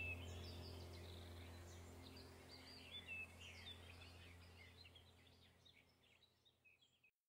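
Faint birds chirping over a low steady hum, fading out gradually and cutting off to silence near the end.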